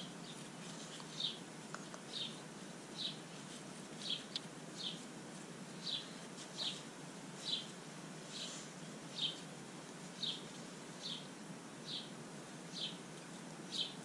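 Short high chirps repeating steadily about once a second, from a small animal such as a bird or cricket, over a faint low background hum.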